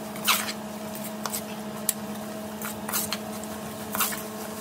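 Perforated metal ladle stirring chopped carrots, beans and peas through thick masala in a metal pressure cooker, with a few sharp scrapes and clicks against the pot. A steady low hum runs underneath.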